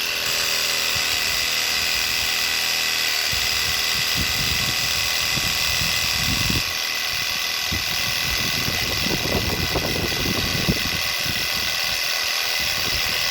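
12-volt tire-inflator air compressor running on a 14.4-volt Panasonic drill battery, a steady loud motor-and-pump buzz with a rattle underneath. It has started as soon as the battery went in, since there is no switch, and runs properly.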